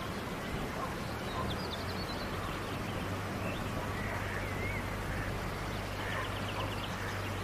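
Outdoor nature ambience: a steady background hiss with a low hum, and birds calling now and then, with a quick trill about a second and a half in and another near the end.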